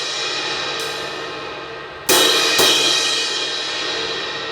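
Meinl Soundcaster Fusion 18-inch medium crash cymbal, cracked at the edge, ringing and fading from earlier hits. It is then struck twice, half a second apart, about two seconds in, and left to ring out.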